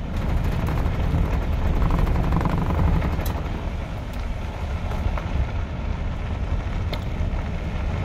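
A vehicle driving on a dirt road, heard from inside the cab: a steady low rumble of engine and tyres, with wind buffeting the phone's microphone. A couple of faint clicks come through, one a few seconds in and one near the end.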